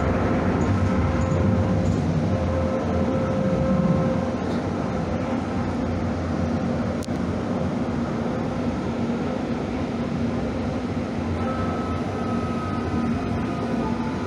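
Calgary CTrain light-rail vehicle running along the track: a steady rumble with a few faint steady tones, a little louder over the first four seconds.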